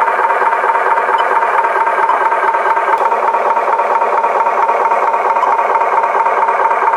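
Battery-powered toy truck running: a steady whirring hum with rattling.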